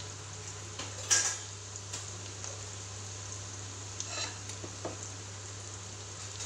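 Chopped onions frying in oil in a nonstick pan with a steady sizzle, on their way to golden. A wooden spatula knocks and scrapes against the pan about a second in, and again around four and five seconds.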